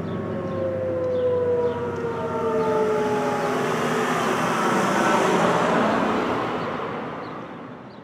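Whelen WPS-3016 electronic outdoor warning siren winding down at the end of its steady alert tone, its pitch sliding slowly downward. A rushing wash builds under it a few seconds in, then the whole sound fades away near the end.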